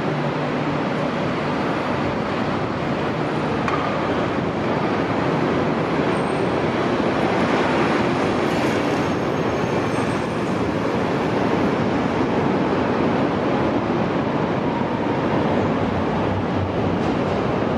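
CTA 7000 Series 'L' rail car running along the track: steady rolling wheel-on-rail and running noise, even in level throughout.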